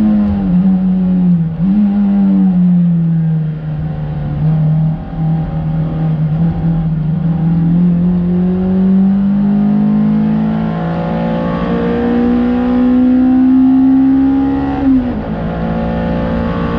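Honda Civic EP3 race car's four-cylinder engine under load on a lap. The revs drop early on as the car slows and changes down, then climb slowly through a long pull and fall sharply near the end at a gear change or lift.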